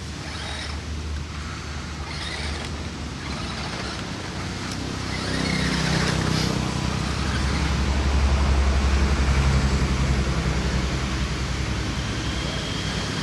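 A low, steady engine hum that swells about halfway through and eases off again near the end.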